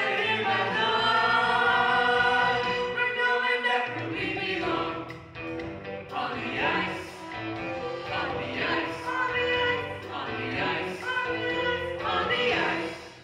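A stage cast singing a musical number together, with long held notes in the first few seconds and shorter sung phrases after.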